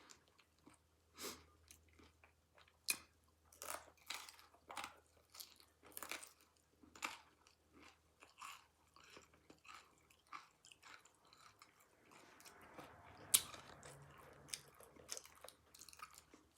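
Close-mouth eating sounds: chewing with wet, irregular lip smacks and clicks, one or two a second. One sharp click near the end stands out above the rest, and a faint steady noise comes in during the last few seconds.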